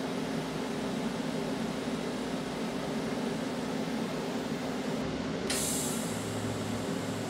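Steady machine hum and hiss from a TIG welding setup between welds, with the torch held over the steel without a lit arc. A short burst of hiss comes about five and a half seconds in, and a low buzz starts about a second later.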